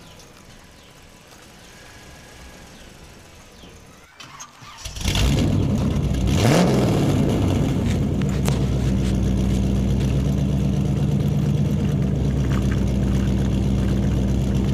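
A vehicle engine starts about five seconds in, sweeps up briefly, then settles into a steady low idle.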